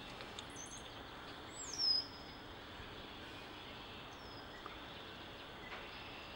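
Bird calls over a steady faint outdoor hiss: a few short high chirps, then a louder downward-sliding whistle about two seconds in, and a fainter falling note a couple of seconds later.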